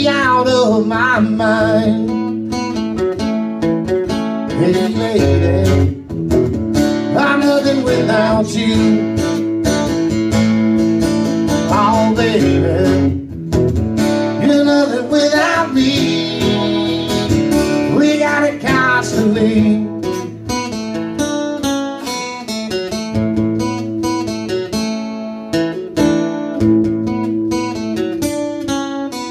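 Acoustic guitar strumming and picking a country song played live, with a wavering lead melody over it for about the first two-thirds, after which the guitar carries on alone.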